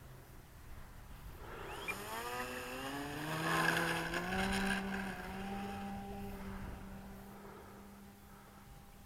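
Electric motor and propeller of a Flyzone Cessna Corvalis RC model plane throttling up for a takeoff. A whine rises in pitch from about a second and a half in and is loudest around four seconds. It then holds a steady pitch and slowly fades.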